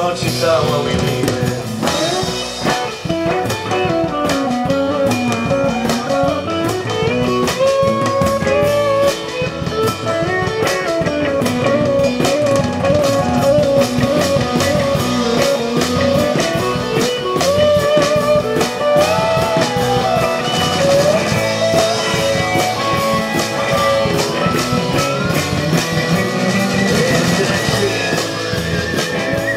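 Live rock band playing an instrumental break: a steel guitar played with a slide bar carries a lead of smoothly gliding, bending notes over bass guitar and drums.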